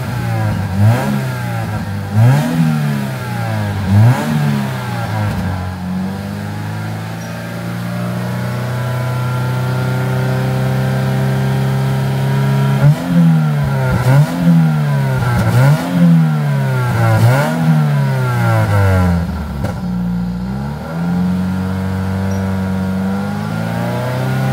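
Toyota 86 GRMN's flat-four engine, heard at the tailpipe, blipped several times with revs rising and falling, held at steady raised revs for several seconds, then blipped again and settled. It is being revved to about 2,000–3,000 rpm to check the exhaust for white smoke from burning oil.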